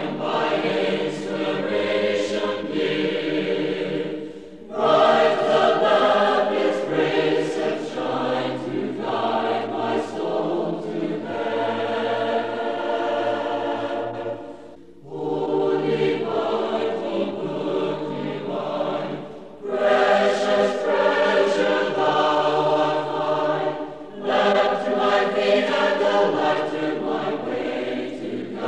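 Congregation singing a hymn together a cappella, many voices in long sustained phrases with short pauses between lines.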